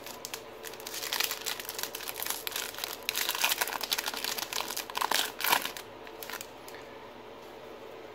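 Foil wrapper of a Topps baseball card pack crinkling as it is handled and torn open by hand. A dense run of crackles lasts about six seconds, then dies away.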